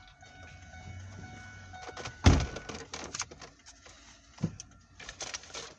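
A heavy thump about two seconds in, followed by scattered clicks and handling noise, with a faint steady tone during the first half.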